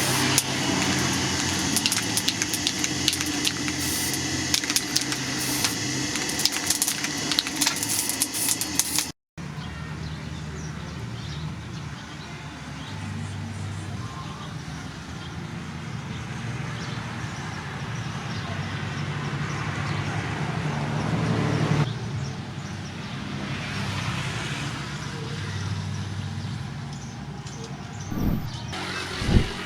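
Workshop machinery: a motor runs under dense scraping and clicking. After a sudden cut about nine seconds in, it gives way to a steadier machine hum whose low tone shifts, and a few low thumps come near the end.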